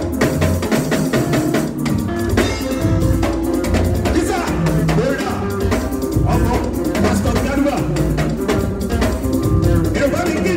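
Live band playing through loudspeakers: a drum kit keeping a steady beat under keyboard and guitar, with a man singing into a microphone.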